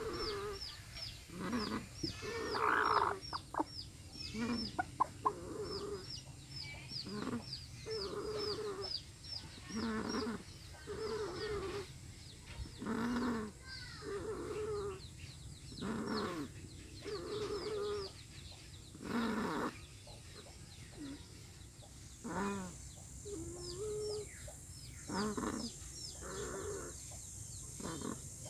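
Chicken making snore-like rasping calls over and over, one roughly every second and a half, with a fast high chirping behind it through much of the time.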